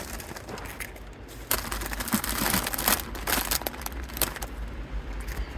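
Plastic rice-cake packaging crinkling and rustling in the hands, with irregular small crackles as the opened package is handled.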